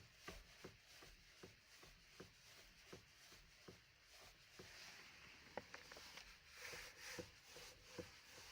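Faint, repeated short knocks from the steering of a Skoda Rapid with the engine switched off, a couple a second and somewhat irregular. This is the unexplained steering knock that the owner is tracing.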